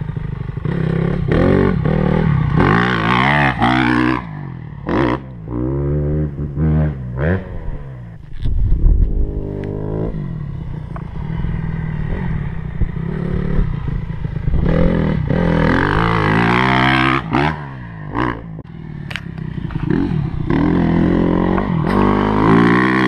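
Motocross bike's single-cylinder four-stroke engine, a Honda CRF250R, revving hard and backing off over and over as it rides the track, its pitch rising and falling with each throttle burst and gear change. A brief loud low thump comes about eight seconds in.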